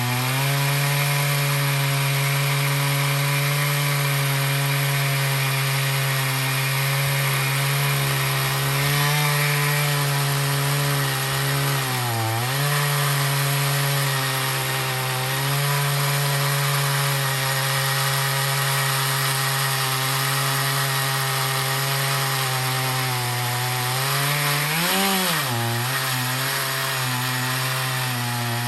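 Chainsaw engine running steadily at high speed while ripping a cedar log into a 2-inch slab. The engine pitch dips briefly about twelve seconds in and rises then falls again near the end.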